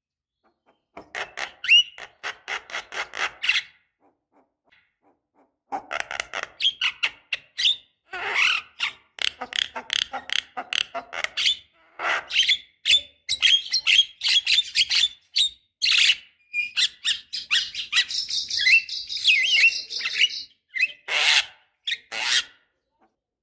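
Javan myna calling: bursts of fast chattering, clicking notes mixed with short whistled notes, with brief pauses near the start and around four to five seconds in.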